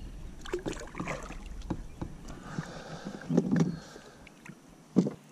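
Knocks, clicks and rustles of fishing rods and gear being handled in a plastic kayak, with a heavier thump a little past three seconds and a single sharp knock near the end.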